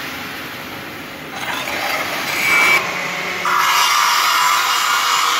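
Stick (arc) welding on a mild-steel square-pipe joint; a steady hiss of the welding arc starts about three and a half seconds in, after a shorter, uneven stretch of noise.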